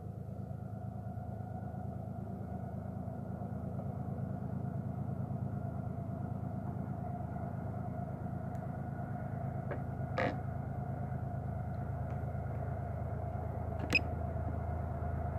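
Low steady rumble of a distant Florida East Coast freight train approaching, slowly growing louder, with two short sharp sounds in the second half.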